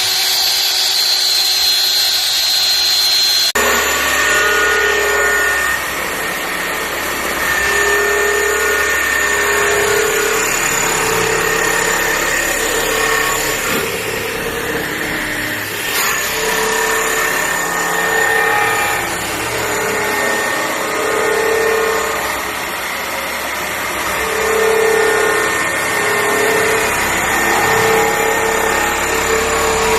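Automatic hairline grinding machine running, its abrasive head travelling back and forth over a metal surface. The sound changes about three and a half seconds in, then a tone keeps swelling and fading every second or two with each pass, over a steady whine.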